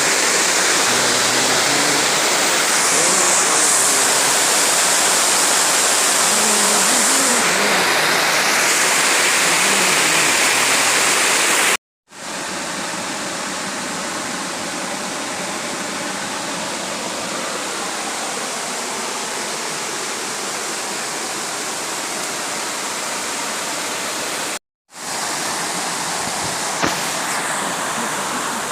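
Steady rush of a waterfall's falling water, cutting out to silence twice for a moment.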